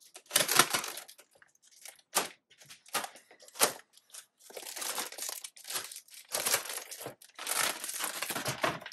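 Clear plastic packaging bags crinkling and tearing as they are slit open and pulled off packed accessories. A few short, sharp crackles come first, then longer stretches of crinkling from about halfway in.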